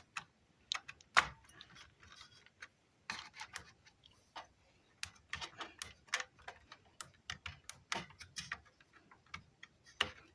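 Irregular light clicks and taps of a RAM stick being handled and pushed into a motherboard's memory slot.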